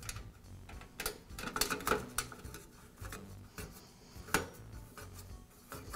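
A nut being fastened by hand to secure a metal reflector and plastic grill on a bathroom vent-fan-heater: scattered small metallic clicks and taps, with one sharper click about two-thirds through.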